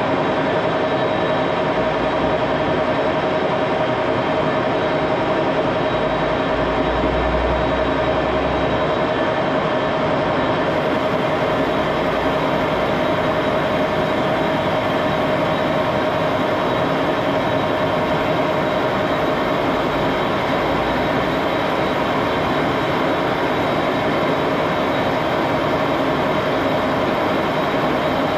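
Old metal-turning lathe running and turning a shaft: a steady mechanical whir of the spindle and gearing with a constant whining tone.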